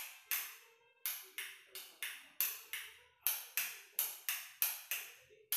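Wall light switches on a household switchboard being flicked on and off in quick succession: a sharp click every third to half second, each dying away quickly.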